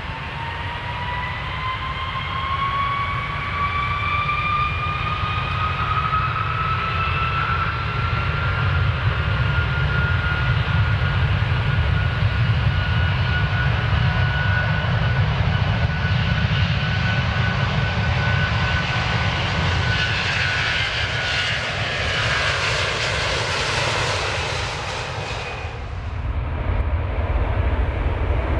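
Airplane engines during takeoff: a whine rises in pitch over the first several seconds and then holds steady above a deep, continuous rumble. Near the end a louder rushing noise swells and then cuts off abruptly.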